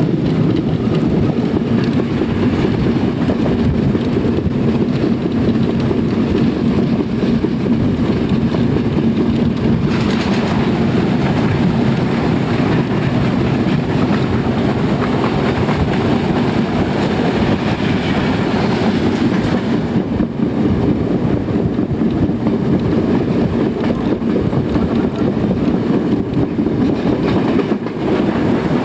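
A train running on rails, a steady loud rumble, with a brighter hiss added from about a third of the way in until about two thirds through.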